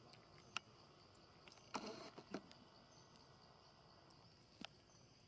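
Near silence: a faint steady insect drone, with a few soft clicks and a short rustle about two seconds in.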